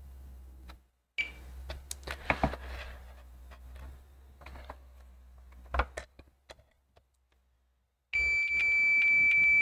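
A multimeter's continuity beeper: one steady high beep, blipping briefly about a second in, then sounding for nearly three seconds near the end as the probe finds a low-resistance path, the short being traced on a laptop motherboard. Before the long beep there are scraping clicks of the probe tip against the board.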